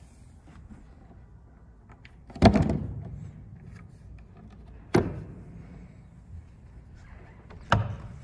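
Three wooden thuds as the key cover (fallboard) of an upright piano is handled and shut over the keys, the first the loudest, each dying away over a moment.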